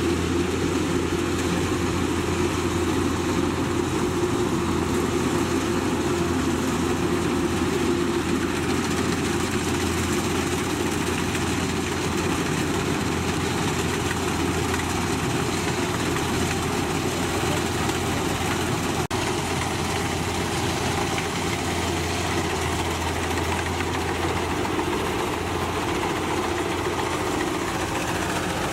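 Combine harvester running steadily, a constant deep engine drone that does not change in pitch or level.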